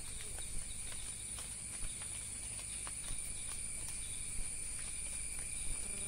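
Steady, high-pitched chorus of forest insects, several unbroken shrill tones at once, with a few faint clicks.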